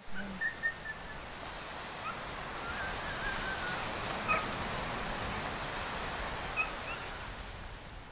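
Small waves washing onto a sandy beach, a steady hiss of surf, with a few short, faint bird calls over it.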